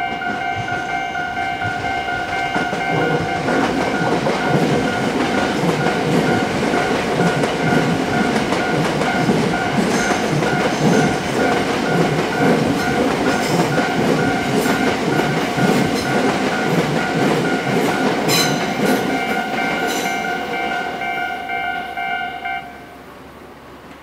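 Japanese level-crossing alarm bell ringing in rapid, even pulses while an electric commuter train runs past, its wheels clacking over the rail joints. The bell stops near the end as the train clears.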